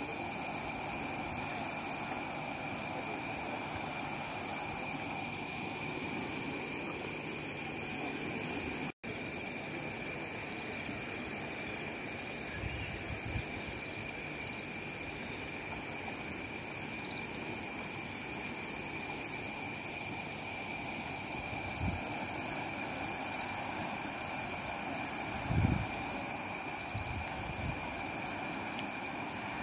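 A steady insect chorus, a constant shrill high whine with a shimmering pulsing note, over an even rushing hiss from the flood-swollen river. The sound breaks off for an instant about nine seconds in, and a few low bumps of wind or handling on the microphone come in the second half.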